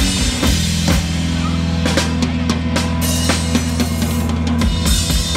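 Live rock band playing, the drum kit to the fore: bass drum and snare hits at irregular spacing over steady, held bass and guitar notes.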